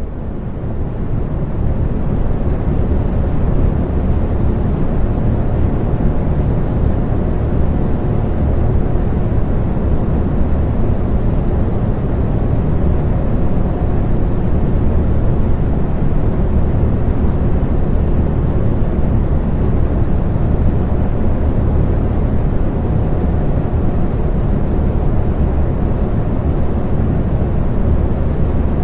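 Electric fan running steadily: a low, even whirring rush with a faint hum in it. It fades in over the first few seconds, then holds level.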